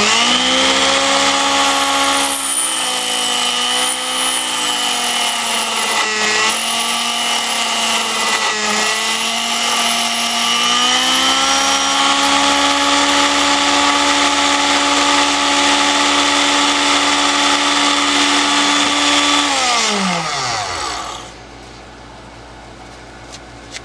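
Key-cutting machine's motor spinning up with a rising whine as its cutter wheel cuts a non-ferrous key blank, dipping briefly in pitch a few times as the cutter bites. About 20 s in it is switched off and winds down with a falling whine.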